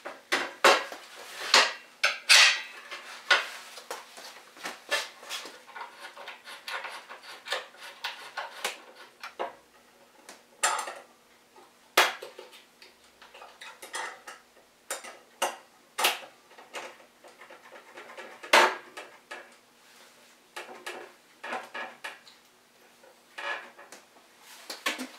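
Steel bar clamps clanking and clicking as they are set and tightened along a glued-up table edge: irregular sharp metal knocks, the loudest in the first few seconds and another about three-quarters of the way through.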